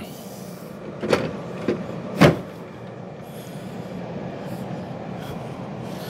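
Plastic water tank of a Midea dehumidifier being pushed shut into the unit: a few plastic knocks, the loudest about two seconds in as it seats, over the steady fan noise of the running dehumidifier.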